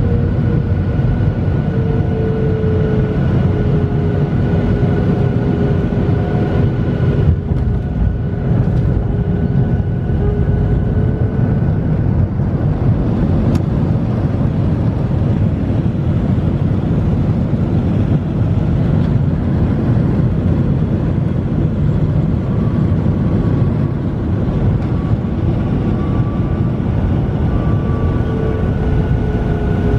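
Jet engines of a Boeing 737 running steadily, a loud constant rumble with faint engine tones that slowly drift in pitch.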